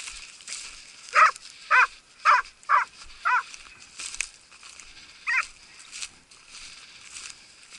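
Hunting hound giving tongue while chasing a hare: five quick yelping barks about half a second apart, then a single bark a couple of seconds later.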